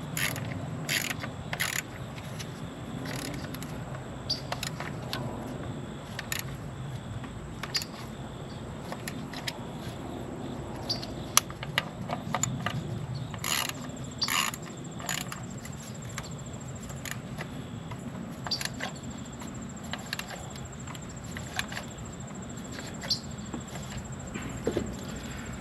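Irregular clicks and light scrapes of a hand tool on metal as the ignition coil hold-down bolts are tightened in a car engine bay, over a steady high insect drone.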